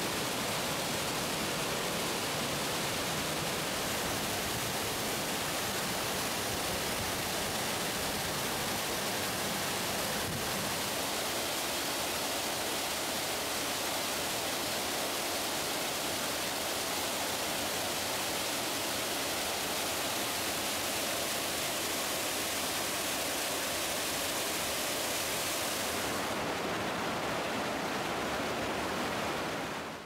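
Waterfall water falling and rushing, a steady, dense noise. It shifts slightly in tone about twelve seconds in and turns duller near the end, then fades out.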